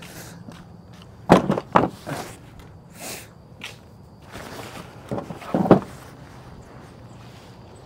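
Footsteps on a concrete driveway, with a few short knocks and rustles as a rain jacket and gear are set into a pickup truck's bed.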